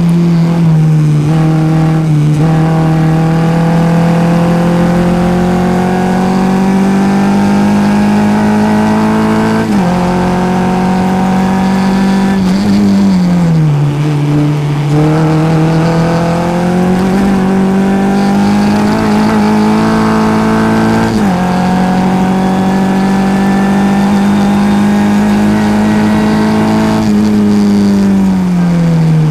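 Formula Ford race car's engine heard from the onboard camera at racing speed. It climbs slowly in pitch under throttle, drops sharply at upshifts, and falls away twice as the car lifts and brakes for corners.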